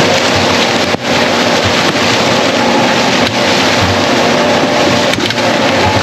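John Deere 4830 self-propelled sprayer driving through standing corn, heard from low on its Y-drop boom: a loud, even rushing of corn leaves brushing past over a steady engine hum, with a few sharp ticks.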